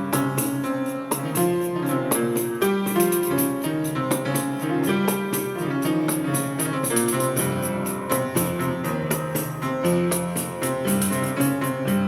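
Small acoustic jazz band playing instrumental music: piano over a bass line, with hand percussion ticking steadily on top.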